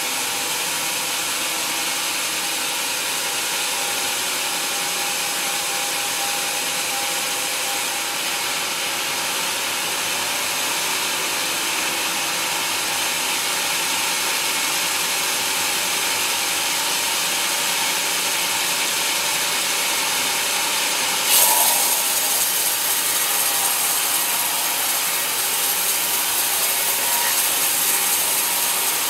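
Band sawmill blade cutting lengthwise through a teak log, a steady hissing rasp of the saw in the wood. About three-quarters of the way through there is a sudden brief louder jolt, after which the cut sounds harsher and brighter.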